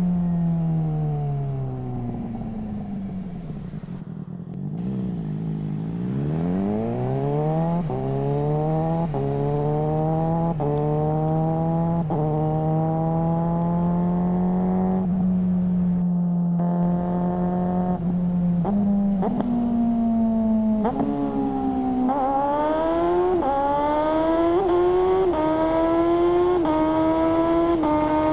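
Suzuki GSR600's inline-four running through a GPR Ghost exhaust. The revs fall off at first, then the bike accelerates through the gears, each climb in revs cut by a sudden drop at a quickshifter upshift, most often near the end.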